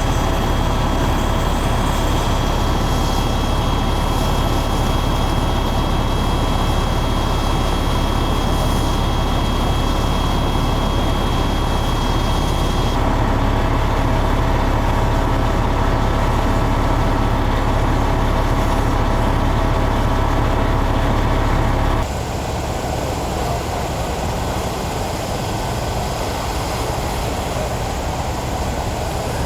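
Steady low rumble of heavy vehicle engines idling, with a few steady whining tones over it. The sound changes abruptly twice, most clearly about 22 seconds in, where the rumble drops and it gets quieter.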